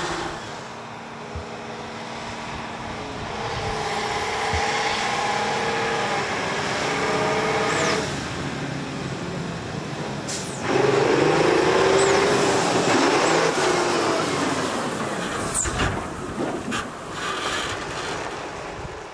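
Faun SLT 50 8x8 tank transporter's diesel engine running under load as the truck drives over a sandy track, its pitch shifting in steps, and louder from about ten and a half seconds in.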